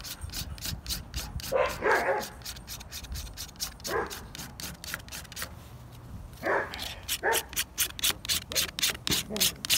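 Hand-held tungsten carbide sharpener scraping along the edge of a plastic CD in quick strokes, about four a second, shaving off plastic. The strokes pause briefly about six seconds in. A dog barks a few times.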